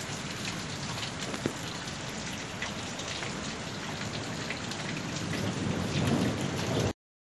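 Steady storm rain falling on a flooded street, with a low rumble swelling near the end before the sound cuts off suddenly.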